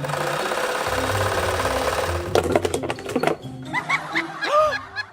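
Cartoon sound effects over children's background music: a fast mechanical rattle for about two seconds, then a few clicks and several short up-and-down pitch glides near the end.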